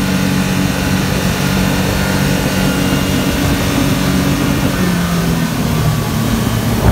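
Yamaha 225 outboard motor running at speed, driving the boat, over a rush of water spray and wind. The engine's pitch drops slightly about five seconds in.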